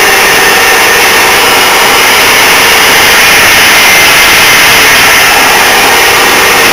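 Old metal lathe running under power on its 2 hp Brook electric motor and V-belt drive, with a loud, steady mechanical running noise from motor, belts and gearing.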